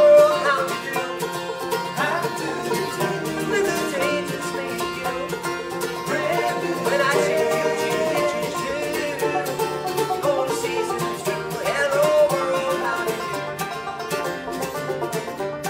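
Acoustic bluegrass band playing live: banjo, acoustic guitar, mandolin and fiddle together. The music cuts in suddenly out of silence at the start.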